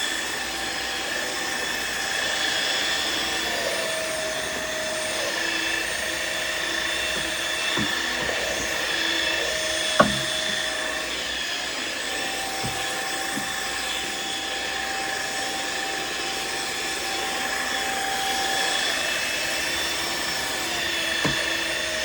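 Riccar R70 floor washer running: a steady motor whine over its spinning brush rolls, with a tone that shifts in pitch a few times as it works. A single sharp click about halfway through.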